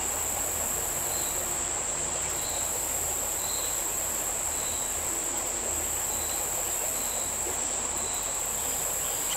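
Steady high-pitched drone of a summer insect chorus over the even rush of a small stream, with faint short high notes repeating about once a second.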